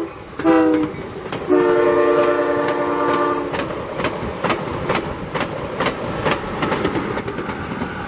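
Amtrak Cascades train passing at speed: the leading EMD F59PHI diesel locomotive's horn sounds a short blast with its pitch falling as it passes, then a long blast about a second and a half in, the close of the long-long-short-long grade-crossing signal. After the horn the Talgo cars' wheels click over the rail joints, about three clicks a second.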